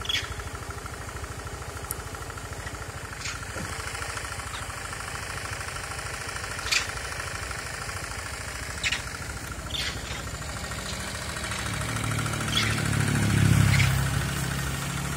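Small motor scooter engine idling with an even, steady pulse, swelling louder for a couple of seconds near the end. Short high chirps sound now and then over it.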